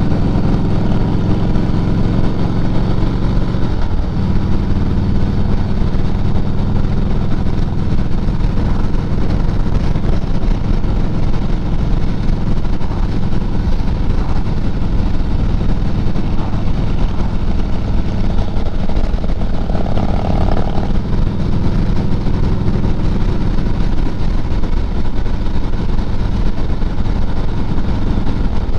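A vehicle driving at a steady speed: a continuous low engine hum with road and wind noise.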